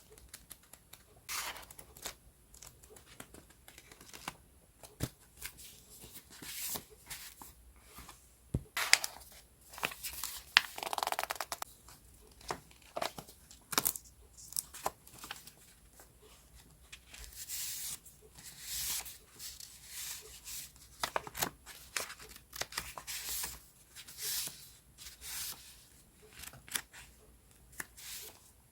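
Sheets of decorative paper and packaging being handled: irregular crisp rustles, slides and crinkles, with a longer swishing rustle about ten seconds in.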